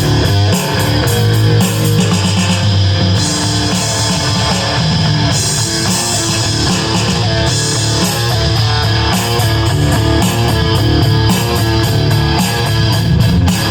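Electric guitar played through the Rez Distortion effect, a continuous distorted riff of shifting notes.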